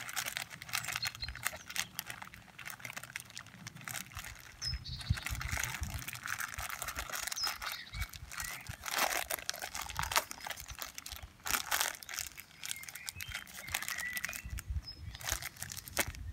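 Thin clear plastic bag crinkling and rustling in irregular bursts as it is wrapped and squeezed by hand around a ball of wet peat moss on a branch.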